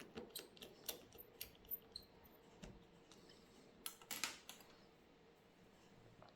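Faint small clicks and taps from handling a smartphone's parts and repair tools: a quick run of separate clicks in the first two seconds, then a tighter cluster of them about four seconds in.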